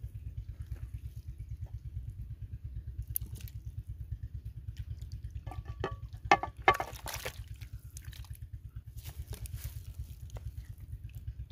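Raw beef chunks tipped from a bowl into a large metal pot of hot water, giving a run of splashes and knocks with two sharp ones a little past halfway, then a wooden spoon stirring the meat. A steady low pulsing rumble runs underneath.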